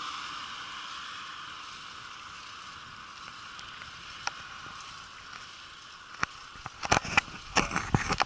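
A car passing on the road alongside, its tyre noise fading over the first few seconds. After that come a few scattered knocks, and in the last second or so a dense clattering as the bicycle rattles over bumps in the path.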